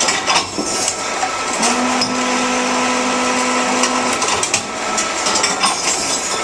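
Tomra reverse vending machine running its motor to spin a bottle past the barcode scanner, a steady whirring hum from about one and a half seconds in to about four seconds in, with a few clicks. The bottle's barcode is torn, so the machine is struggling to read it.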